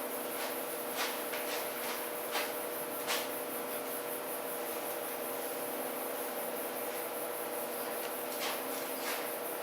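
Faint, scattered rubbing strokes of a FURminator deshedding tool drawn through a cat's fur, over a steady hiss and hum.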